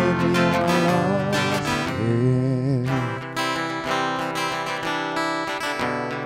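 Acoustic guitar strummed in a steady rhythm, under a wordless sung note with vibrato that dies away about three seconds in; the guitar then plays on alone.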